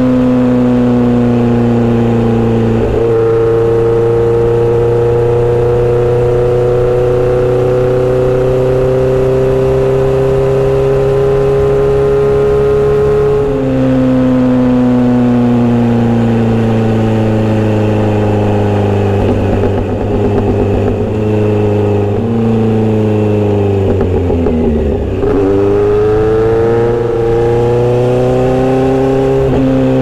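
Kawasaki Z900RS inline-four engine through a Misty Kintaro short-pipe exhaust with an L silencer, heard while riding. Its pitch climbs slowly under throttle and jumps with gear changes about 3, 13 and 22 seconds in. Near the end the revs fall to a low point and then climb again.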